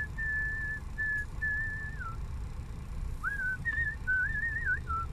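A man whistling a tune in short held notes with slides between them, pausing for about a second midway before carrying on. Under it is the low rumble of the truck's engine in the cab.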